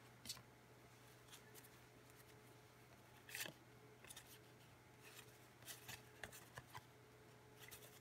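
Near silence with a faint low hum, broken by a few soft clicks and rustles of cardboard baseball cards being handled and flipped through by hand, the most distinct about three and a half seconds in.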